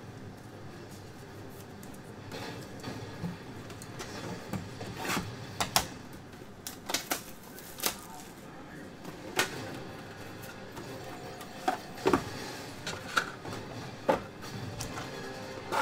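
Trading cards being handled by hand: irregular sharp clicks and snaps as cards are flicked through and set down on a wooden table, more frequent in the second half, over a low room background.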